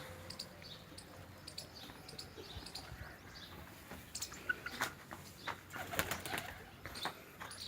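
Birds chirping, with a scatter of short sharp clicks and flutters that are loudest in the second half, like wings flapping.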